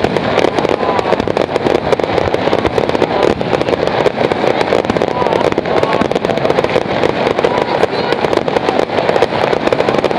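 Aerial firework shells bursting in a rapid, continuous barrage, dense bangs and crackling packed closely together with no pause.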